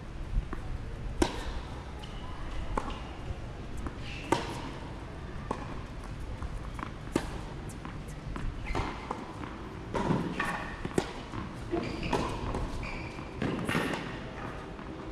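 Tennis balls being hit and bouncing on hard courts: irregular sharp pops and thuds, several seconds apart, under a metal-roofed court cover, with distant voices.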